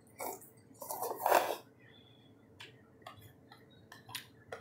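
Eating instant chow mein noodles close to the microphone: a short burst then a louder slurp of noodles about a second in, followed by chewing with a scatter of small sharp clicks.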